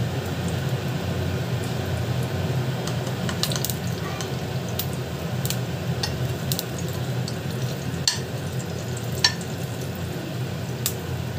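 A metal spoon stirs and clicks against an aluminium pan of heating oil as a spoonful of ghee melts in, with light sizzling. Sharp, scattered clicks come from about three seconds in, over a steady low hum.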